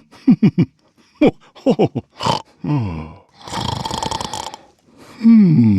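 Recorded snoring of the Hallmark Keepsake Snoring Santa ornament: a few short voice sounds falling in pitch, then a long rattling snore in the middle, then a low falling groan near the end.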